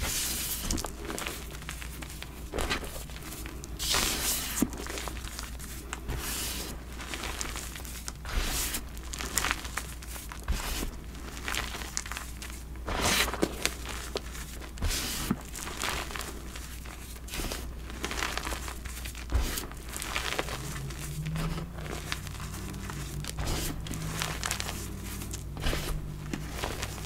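Hands crumbling crunchy blocks of dyed gym chalk and pressing into loose chalk powder: irregular soft crunches and powdery crackles, some sharper than others. A faint low hum runs underneath.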